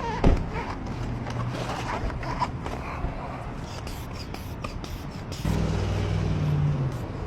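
Car lockout tools scraping and clicking against a car door and its window seal, with a sharp knock just after the start. A low steady hum joins in about five and a half seconds in and stops about a second and a half later.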